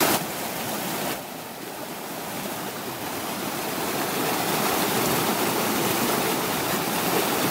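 Fast mountain stream rushing over rocks in whitewater rapids, a steady dense roar of water that swells over the first few seconds.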